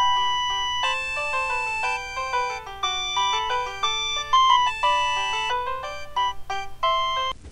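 Background music: a melody of short notes.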